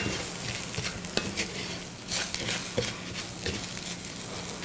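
Wooden spatula stirring and scraping orzo pasta and onions around a frying pan, the grains sizzling softly as they brown, with scattered small clicks of grains and spatula against the pan.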